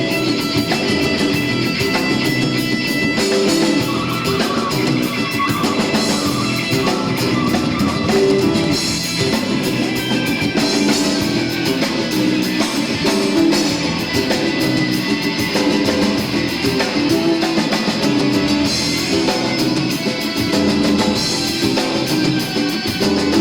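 Live band playing an instrumental passage with guitar and drum kit, without vocals.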